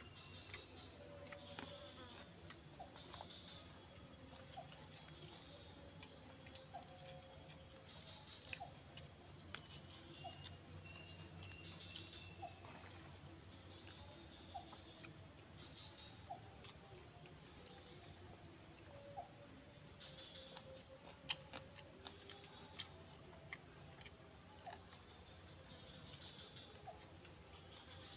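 Steady, high-pitched chorus of insects such as crickets, with scattered faint clicks and ticks over it.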